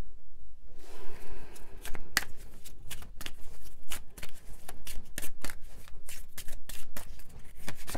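A deck of tarot cards being shuffled by hand: a soft rustle, then from about two seconds in a quick, irregular run of card snaps and flicks.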